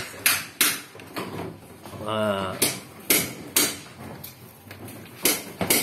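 A series of sharp knocks, about ten, unevenly spaced: a plywood ceiling panel being knocked and pressed back into its metal ceiling frame.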